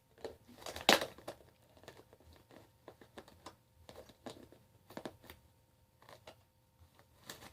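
Chihuahua chewing on a plastic container: irregular crinkling and clicking of the plastic, with a sharper crack about a second in.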